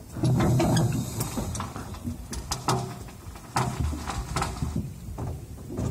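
Waryński K-406 excavator at work on rubble: its engine surges again and again under load as the hydraulics are worked, with sharp metallic clanks and creaks from the machine.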